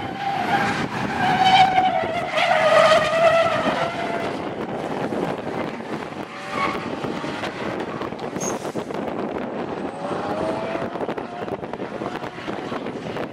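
Two drift cars sliding in tandem: engines revving hard at high rpm with tyres skidding, loudest for the first few seconds, then fainter, with another rising rev about ten seconds in.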